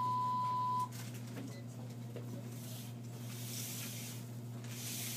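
Pole-mounted IV infusion pump giving one steady beep, about a second long, that cuts off sharply, over a steady low hum.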